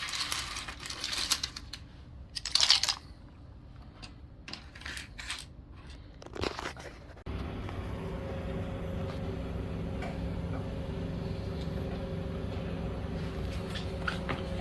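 Hard plastic keyboard parts clicking and clattering, mixed with short bursts of hiss. About halfway through, a steady low hum with a buzzing tone starts abruptly and runs on.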